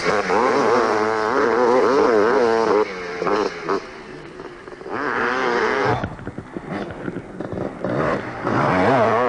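Off-road racing motorcycles passing, their engines revving up and down as the throttle is worked over rough ground. One is loud in the first three seconds, another comes through about five seconds in, and engine revving builds again near the end.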